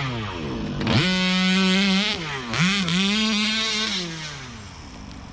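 Small two-stroke petrol engine of an HPI Baja 5B 1/5-scale RC buggy revving hard twice, each rev held high for about a second with a short dip between, then falling back to a quieter idle near the end.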